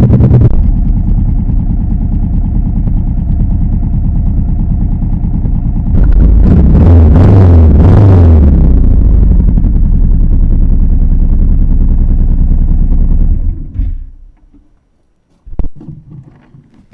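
1998 Honda Shadow VT1100T's 1100 cc V-twin engine idling, heard through a mic inside the left saddlebag, with the throttle blipped a couple of times about six to nine seconds in. The engine sound stops near the end, followed by a couple of faint knocks.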